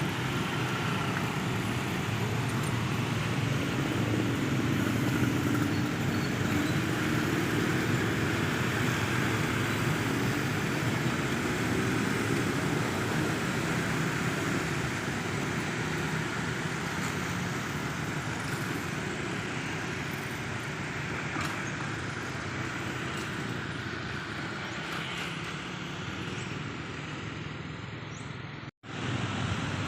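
Steady road-traffic noise of vehicle engines and tyres, with one engine's pitch rising and falling slowly in the first half. The sound drops out abruptly for a moment near the end.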